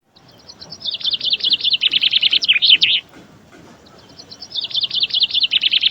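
Budgerigars chirping: two fast runs of high chirps, each about three seconds long, with a short pause between them.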